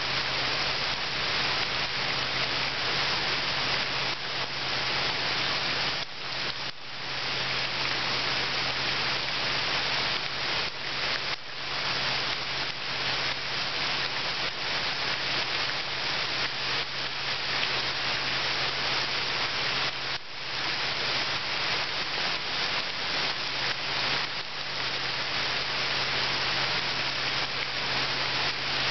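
Steady rain falling into a shallow pool of water, many drops hitting the surface at once, with a few brief dips in level.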